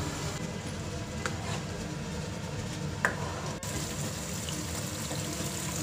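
Thick garlic chili sauce simmering slowly over low heat in a frying pan: a steady bubbling sound with a few small pops, about a second in and again around three seconds in.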